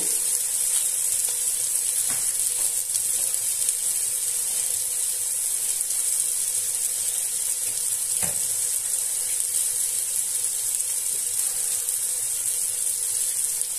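Sliced onions and tomatoes sizzling in hot oil in a pot, a steady high-pitched hiss.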